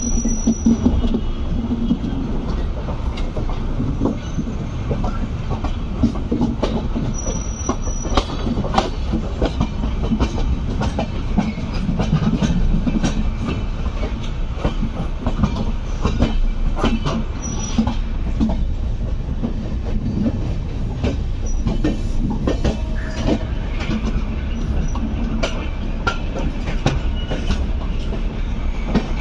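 Indian Railways passenger train running, heard from the moving coach: a steady rumble of wheels on the rails with frequent clicks and knocks over rail joints and points. A few brief high wheel squeals come near the start, at about 8 seconds and at about 17 seconds.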